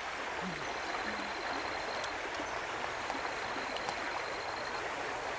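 Steady rush of flowing stream water, with a faint high steady tone that comes and goes.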